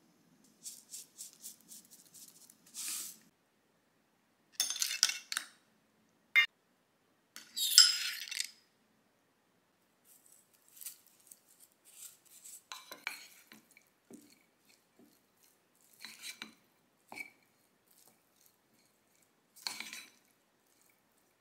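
Wooden spoon scraping and knocking against a bowl while mixing rice, sea squirt, seaweed and sesame for bibimbap. Irregular scrapes and taps, the loudest a sharp knock and a long scrape about six to eight seconds in.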